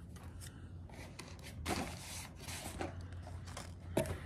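Tackle packaging handled by hand: irregular bursts of rustling and crinkling, loudest about two seconds in, with a sharp click near the end.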